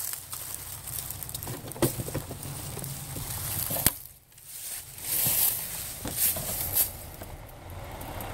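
Creek water sloshing and splashing against the plastic hull of a small RC boat, picked up by a camera mounted on the boat, with irregular surges. Two sharp knocks, the louder one about four seconds in, come from the hull being bumped.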